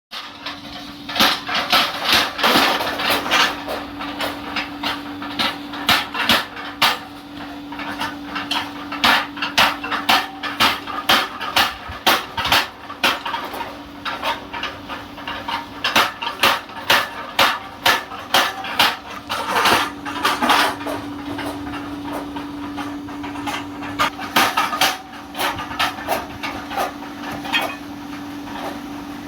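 Hammer blows on metal at a blacksmith's forge: runs of sharp, ringing strikes, several a second, broken by short pauses every few seconds. A steady low hum runs underneath.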